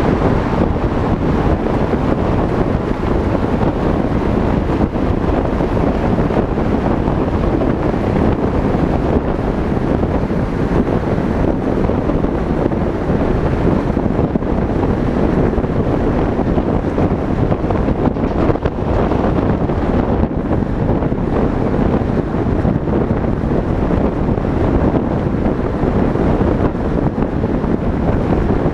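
Steady wind rushing over a vehicle-mounted GoPro's microphone at road speed, mixed with the rumble of tyres and traffic.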